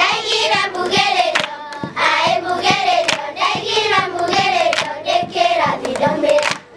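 A group of children singing a song together, with steady hand-clapping keeping the beat.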